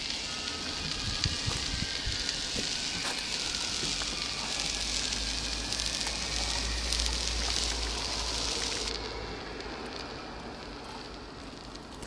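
A steady crackling, hissing noise with scattered small clicks, which thins out suddenly about nine seconds in, over a low rumble in the middle.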